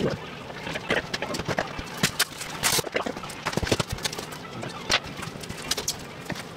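Irregular knocks, cracks and scrapes of a thin wall panel being pried and torn out by hand, with the loudest cracks about two seconds in, near three seconds and at five seconds.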